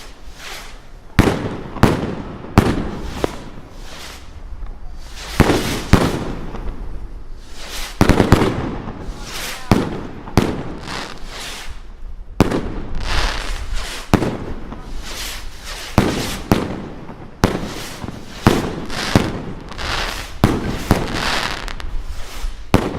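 Fireworks bursting overhead: a long, irregular run of sharp bangs, often several a second, each followed by a trailing rumble and hiss.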